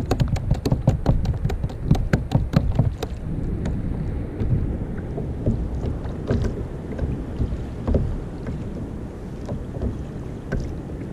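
Water lapping against a sit-on-top kayak's hull, with wind on the microphone. A quick run of sharp clicks, about five a second, for the first three seconds, then only a few scattered clicks.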